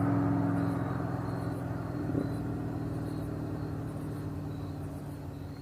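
Car engine running as the car drives, getting steadily quieter, with a brief knock about two seconds in.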